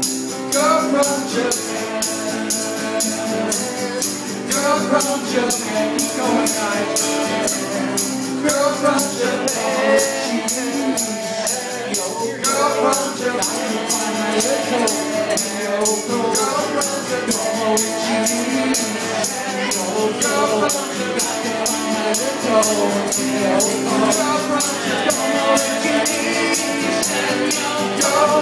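Live acoustic band music: a strummed acoustic guitar and two male voices singing, over a steady high-pitched percussion beat at about three strokes a second.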